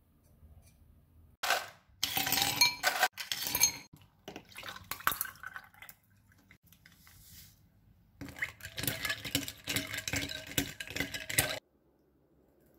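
Ice cubes clinking in a stemmed glass and a drink poured over them, in two loud spells of clinking and splashing with scattered clinks between.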